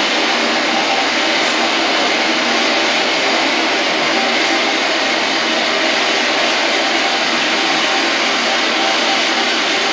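Steady, even rushing noise with no distinct events, from a film clip's soundtrack played over a lecture hall's speakers.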